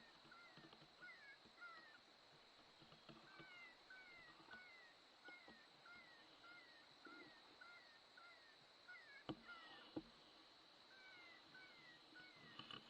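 Faint animal calls: a long run of short, falling chirps, roughly two a second, over a steady high whine. Two sharp clicks come near the end.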